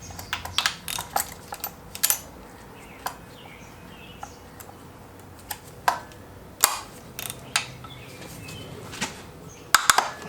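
Irregular metallic clinks and knocks of hand tools against engine parts, about a dozen sharp strikes at uneven intervals, clustered in the first two seconds and again near the end.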